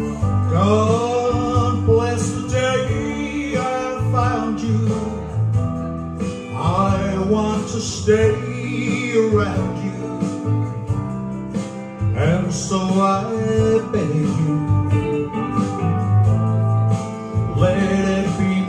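Music: a country-style song with guitar on a backing track, with a man singing into a microphone over it.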